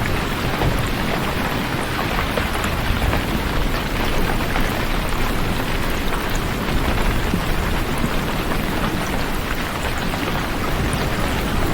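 Steady rain: an even hiss of falling rain with scattered drop ticks, over a constant low rumble.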